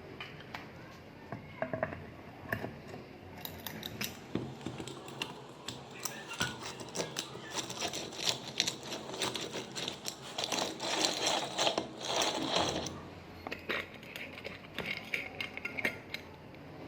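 Small mechanical clicks, scrapes and rattles from hand work on small metal parts, thickest in the middle stretch.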